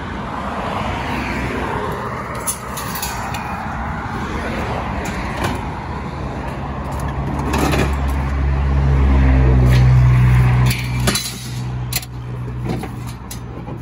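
Road traffic going by on a busy street, with a large vehicle's low engine drone swelling to its loudest about two-thirds of the way through and then dropping away. Scattered sharp knocks and clanks of scrap metal being handled.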